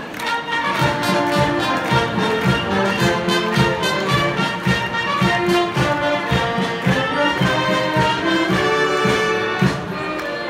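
A brass band playing a lively dance tune, several brass instruments over a steady beat.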